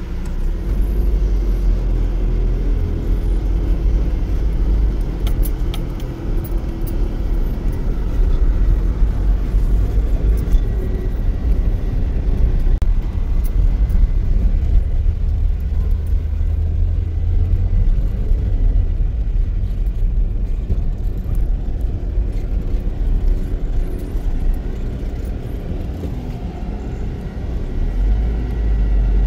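Steady low rumble of a running vehicle, easing a little past the middle and swelling again near the end.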